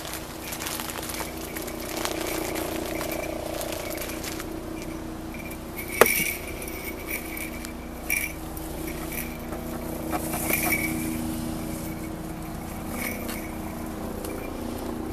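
Small bells on a cat's tinsel collar jingling now and then as the cat moves, with one sharp clink about six seconds in and a few softer ones later, over a steady low hum.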